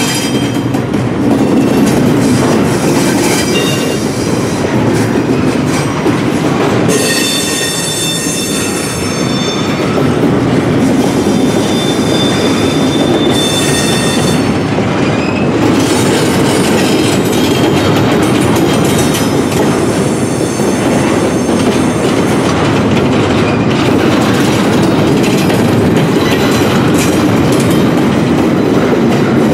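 Double-stack intermodal well cars of a freight train rolling past, with a steady rumble and the clatter of wheels over the rail. A high, ringing wheel squeal joins in from about seven seconds in and lasts about eight seconds.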